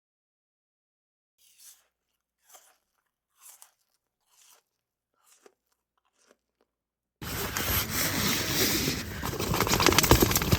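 Silence, then about six faint short crunches, roughly one a second. About seven seconds in, a loud, dense rushing noise with a crackle in it starts abruptly.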